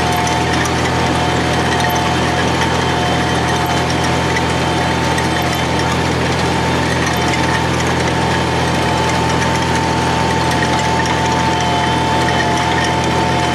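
Engine of a trenching machine running steadily at constant speed, with a steady whine over the engine.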